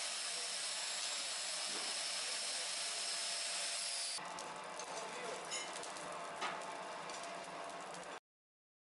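Coal forge fire hissing steadily, with a faint high whine over it, while a steel knife blank heats for hardening. About four seconds in the sound changes to a rougher rush of burning coals with scattered crackles and pops, then cuts off near the end.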